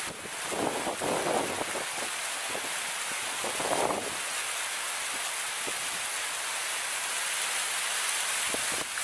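Rows of small fountain jets splashing down into a shallow pool, a steady hiss of falling water.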